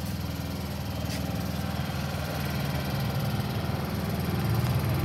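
An engine idling, a steady low hum that grows a little louder near the end.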